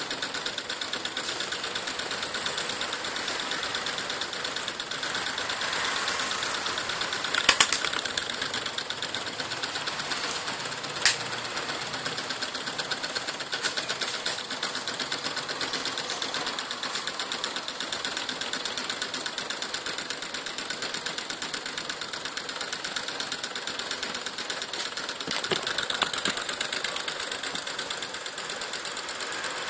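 Homemade drink-can Stirling engine running fast, its crank and linkage making a rapid, even mechanical clatter while it drives a small generator lighting LEDs. A sharper click comes about 7 seconds in and another about 11 seconds in.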